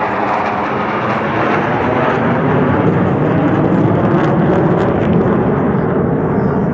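Military aircraft flying past: a loud, steady rushing engine noise that deepens gradually toward the end.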